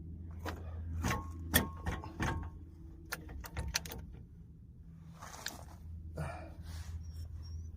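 Metal tools and parts clinking and knocking while a car's front wheel hub is taken apart: a run of sharp clicks and taps in the first few seconds, some with a short metallic ring, then softer scraping and rustling, over a steady low hum.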